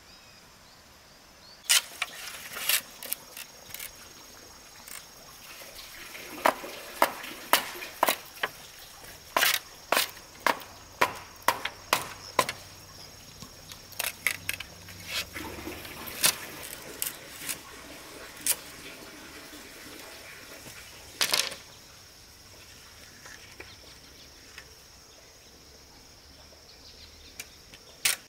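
A tool striking wood in an irregular run of sharp knocks, one to two a second, stopping about two-thirds of the way through and starting again near the end. Insects drone steadily in the background.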